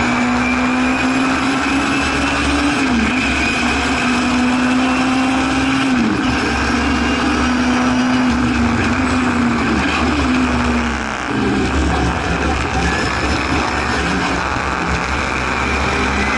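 A Singer Chamois (Hillman Imp-based) historic racing saloon's rear-mounted four-cylinder engine, heard from inside the cabin, running hard. Its note climbs steadily, then drops sharply at gear changes about three, six and ten seconds in. It dips briefly around eleven seconds as the throttle is lifted, then runs on at a lower pitch.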